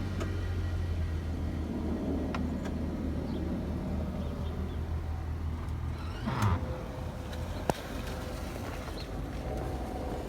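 A motor vehicle's low, steady rumble that fades after about six seconds, followed by a short sound sweeping down in pitch and a single sharp click about a second later.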